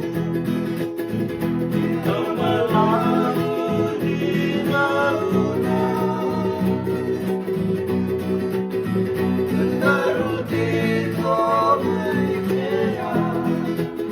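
Fijian sigidrigi string-band music: guitars strummed and plucked steadily under a sung melody that comes in about two seconds in.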